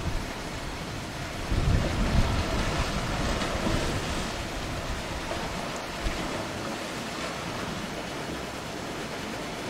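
Surf breaking against a rocky shore, surging louder about a second and a half in as spray flies, then settling back to a steady wash. Wind buffets the microphone with a low rumble.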